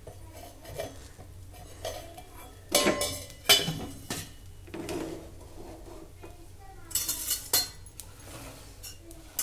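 Metal kitchen utensils clinking and scraping in several short clattering bursts. The loudest come about three seconds in and again around seven seconds.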